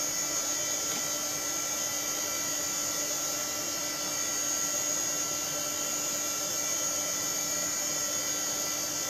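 Apricot XEN-S desktop computer running as it boots: a steady whir of its fan and drive, with several faint high constant tones over it.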